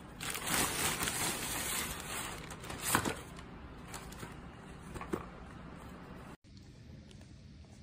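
Plastic mailer bag crinkling and rustling as it is handled, with a couple of light knocks as small boxes are set down.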